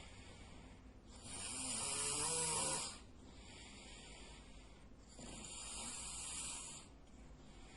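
A sleeping man snoring: two long, hissing snores about four seconds apart, the first louder than the second.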